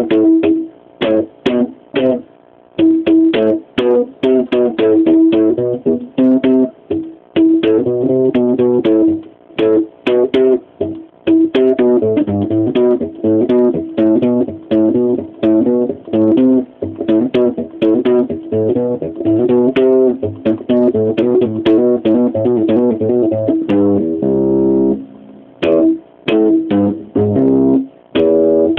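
Electric bass guitar improvising riffs: a quick string of short plucked notes with a couple of brief pauses.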